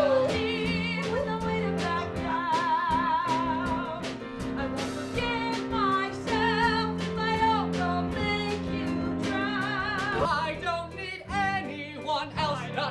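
Music with a high singing voice holding notes with a wide, wavering vibrato over sustained accompaniment chords. About ten seconds in, the music turns choppier.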